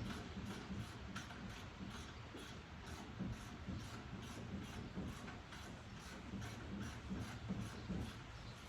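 Hand ratchet wrench clicking steadily, about three clicks a second, as bolts are turned on the tractor's alternator mounting.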